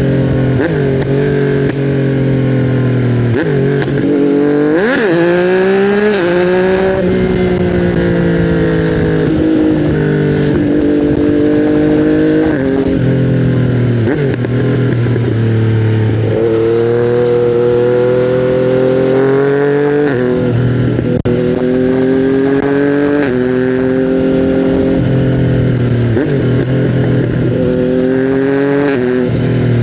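2020 Yamaha MT-09's inline three-cylinder engine running through custom headers and a titanium Akrapovič silencer, accelerating under way. The pitch climbs, drops back at each gear change and climbs again, several times over, with a sharp rev rise about five seconds in.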